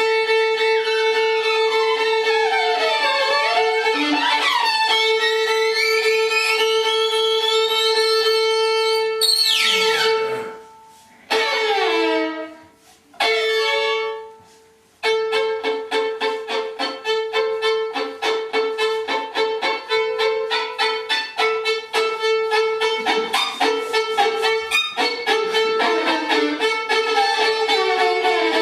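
Experimental music: a steady held drone with sliding pitches sweeping up and down over it. About a third of the way through it breaks off into sweeping glides and short gaps, then the drone returns under a rapid, even pulsing.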